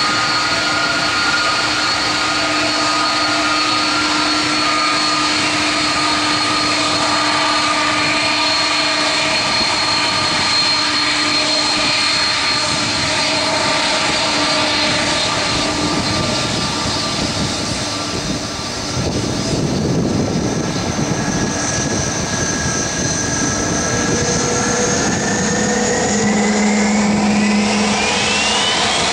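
Turbofan engines of a taxiing Airbus A330 running with a steady jet whine and several held tones. Near the end a whine rises quickly in pitch.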